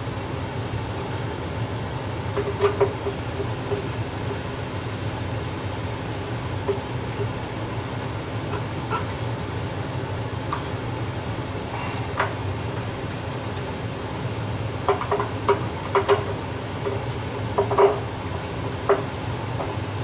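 Scattered small clicks and taps of gloved hands working the wiring and screws at an electric water heater's element access panel, over a steady low hum. The clicks come singly and in small clusters, most of them in the second half.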